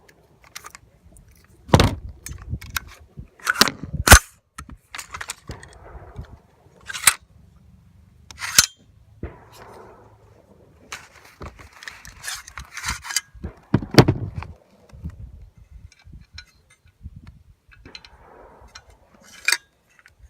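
Sharp metallic clicks and clacks, a dozen or so spread irregularly with rustling between them, from a PSA AR-9 carbine's action being worked and handled while clearing a round that failed to chamber and went off out of battery.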